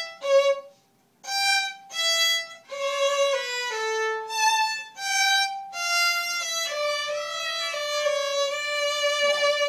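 Two violins playing a tune together: a few short separate notes with a brief pause about a second in, then a smooth run of connected, slurred notes that step up and down in pitch.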